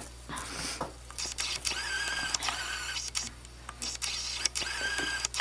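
Camera autofocus motor whirring in several short spells, a thin whine each time, as the lens hunts for focus on a blurry close-up, with small handling clicks in between.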